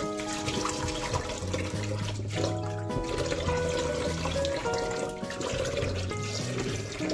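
Kitchen tap running into a bowl of water in a stainless steel sink while hands swish and rinse pieces of raw fish, under background music with held notes.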